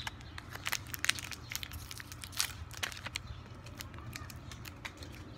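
Plastic snack wrapper crinkling as it is handled and opened, a quick run of irregular crackles.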